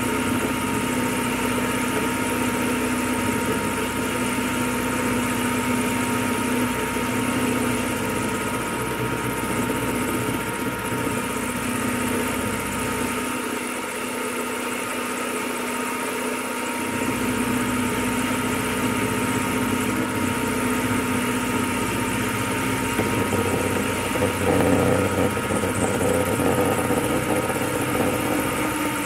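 Small benchtop milling machine running, its end mill cutting a slot in a mild steel block at about 1.5 mm a pass, near the limit of the little mill's power. It makes a steady motor whine under the noise of the cut, which grows a little louder near the end.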